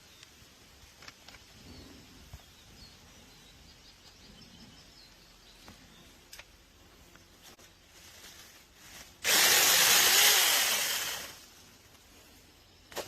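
Battery-powered 6-inch mini chainsaw of a cordless 2-in-1 pole saw running in one short burst of about two seconds. It starts suddenly about nine seconds in and winds down, with a few faint handling clicks before it.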